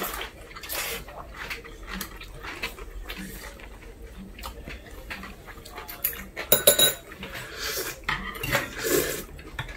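Metal chopsticks and spoons clinking against bowls during a meal, with a cluster of sharp clinks, the loudest sounds, about six and a half seconds in. Near the end, a slurp of glass noodles.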